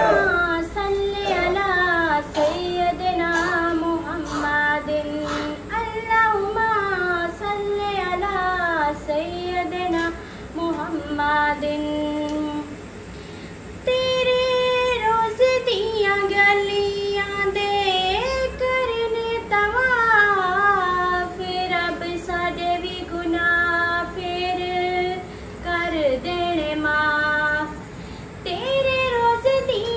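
A woman singing a Punjabi naat, a devotional song, unaccompanied, with long held, wavering notes and a short pause about halfway through.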